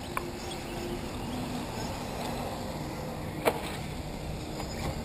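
Outdoor track background: a steady low hum with faint tones that shift in pitch, and one sharp knock about three and a half seconds in.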